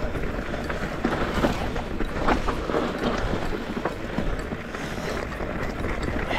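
Rocky Mountain Instinct mountain bike riding over a stony singletrack: tyres crunching on loose rocks and gravel, with a steady run of small knocks and rattles from the bike.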